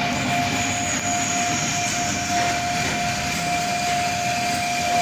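A steady machine drone with a constant whine and a hissing haze over it, holding an even level throughout.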